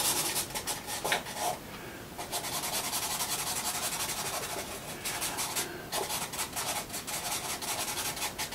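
Charcoal pencil scratching across sketch-pad paper in quick repeated shading strokes, easing off briefly about two seconds in.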